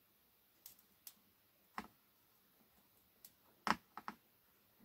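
Faint, scattered light clicks and taps, about seven in all, from a circuit board being handled while parts are desoldered from it with a soldering iron; the loudest comes near the end.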